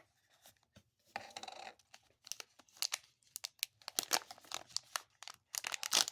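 Snack packaging of chocolate-covered grasshoppers being handled and opened: a short tearing sound about a second in, then irregular crinkling and crackling that grows busier toward the end.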